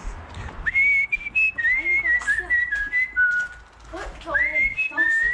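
A person whistling a tune: a string of high held notes that step up and down, with a short break about three and a half seconds in. Footsteps on a hard floor tap underneath.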